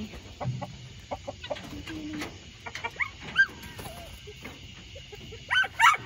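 Chickens clucking and calling as they settle at roost, a run of short sharp calls, with a louder burst of calls near the end.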